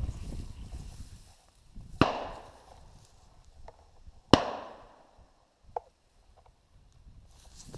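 Two shotgun shots about two seconds apart, each a sharp crack with a short echoing tail. A faint click comes shortly after the second.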